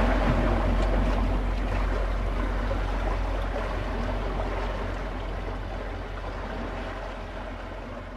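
Steady rushing seaside ambience, with a low rumble under it, fading out gradually.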